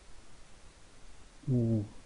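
Faint room tone, then a man's short hum about one and a half seconds in, a wordless hesitation sound between sentences.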